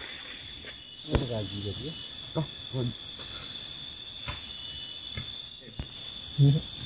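Loud, steady, high-pitched drone of forest insects, with a higher shrill layer that grows stronger about a second in. A few sharp knocks sound through it.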